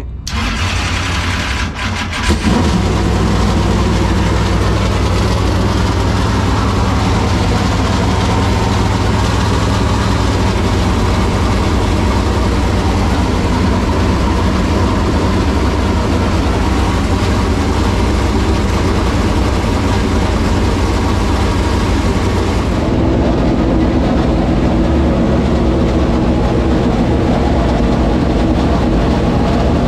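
Chevrolet SB2 small-block V8 race engine in a Super Late Model dirt car, cranked and catching about two seconds in, then running steadily at idle. It is being run so its ignition timing can be set.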